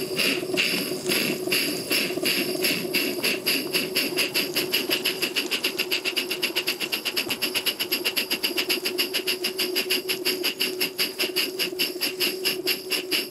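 Exhaust beats of a live-steam, 1:20.3-scale model of a K-36 narrow-gauge steam locomotive, chuffing evenly. The beats quicken from about two a second to about six a second as the locomotive gathers speed.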